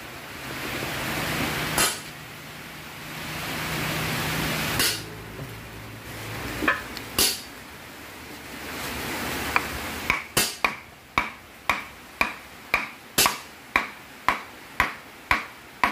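Sharp metal-on-metal hammer blows: a few single strikes, then a steady run of taps about two a second, some with a brief ring, as the timing gear and pulley are driven down onto the crankshaft snout.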